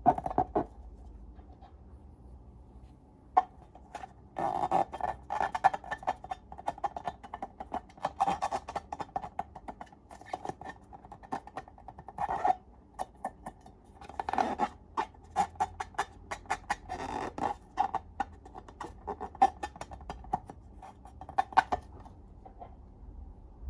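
Slime being squeezed and stretched by hand: bursts of rapid sticky clicking and crackling, quieter for the first few seconds.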